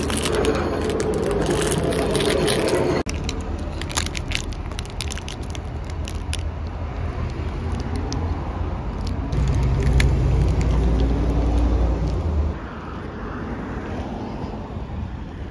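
Low, steady rumble of road traffic, with the crinkle and ticking of a plastic snack wrapper being handled.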